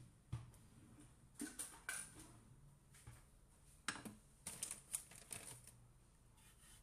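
Light wooden knocks and taps as a rolling pin and wooden boards are handled on a kitchen counter: a scattered run of short, sharp clicks in small clusters, about a second and a half in and again around four to five seconds in.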